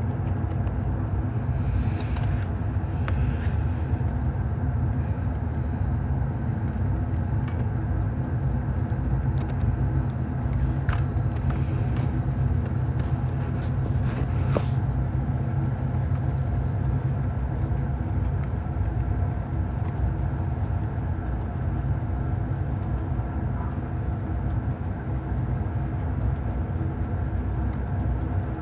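Diesel locomotive engine sound effect, a steady low rumble with constant engine tones, for a Canadian Pacific SD90/43MAC model. A few sharp clicks and rattles come through between about two and fifteen seconds in.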